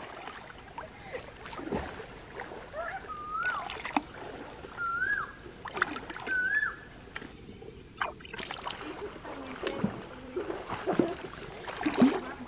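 Hands splashing and sloshing in shallow stream water, groping along the rocky bottom for snails, in irregular strokes with the loudest splash near the end. A few short wavering whistles sound over it in the first half.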